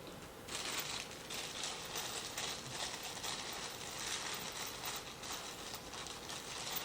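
Plastic hardware bags rustling and crinkling continuously as they are handled and sorted through, starting about half a second in.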